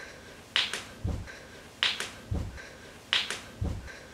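Finger snaps in pairs, each pair followed by a low thump, repeating evenly about every 1.3 seconds as a snap-and-kick beat.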